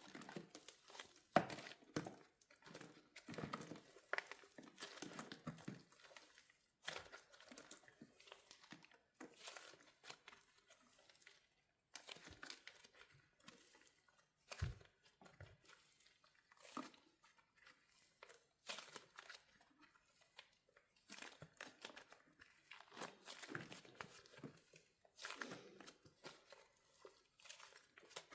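Wax coating on a soft soap squishy cracking and crinkling as it is squeezed, in short irregular bursts of soft crackle with gaps between, and one duller knock about halfway through.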